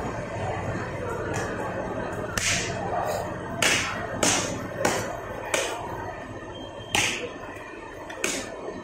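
Large cleaver chopping through a tuna head on a wooden log chopping block: about eight sharp chops at uneven intervals, half a second to a second and a half apart. A steady low hum underlies the first couple of seconds.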